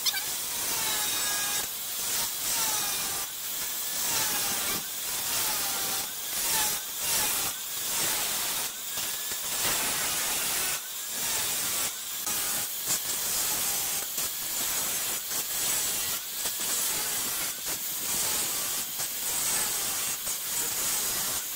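Corded angle grinder with a thin cut-off disc slicing through protruding metal bolt ends, a harsh continuous hiss. The motor's whine sags and recovers again and again as the disc bites into one bolt after another.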